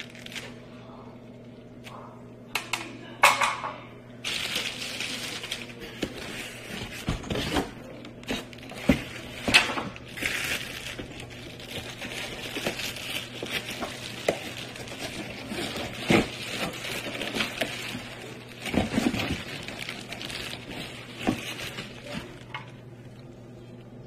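Plastic wrap crinkling and cardboard box rustling as ceiling fan blades are handled and pulled out of their packaging, with a number of sharp knocks and thumps along the way. A steady low hum runs underneath.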